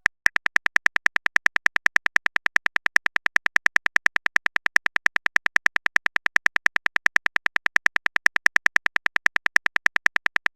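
Typing sound effect for a texting chat: a fast, even run of sharp electronic clicks, about eight a second.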